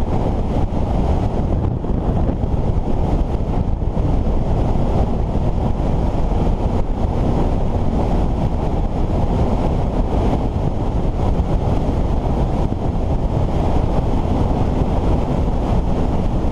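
Steady wind rush over the microphone of a Suzuki GSX-S750 motorcycle riding at a constant cruising speed, with the bike's engine running underneath and no revving or gear changes.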